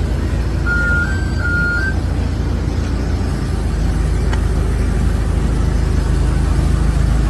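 Steady low rumble of machinery during a Boeing 787 pushback on the apron. About a second in comes a brief beep, four short tones alternating between two close pitches.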